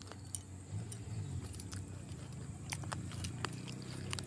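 Faint crunching and scattered small clicks of gupchup papdi being eaten by hand from a steel plate, over a low steady hum.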